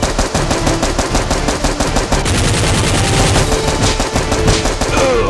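Rapid, continuous automatic gunfire sound effect, a long burst of machine-gun shots dubbed over toy-blaster action.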